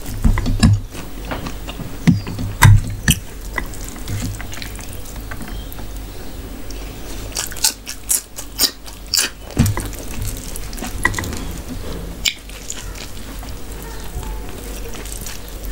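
Close-miked eating by hand: wet squishing of fingers mixing rice and mutton curry, then chewing with lip smacks and sharp mouth clicks, thickest about halfway through.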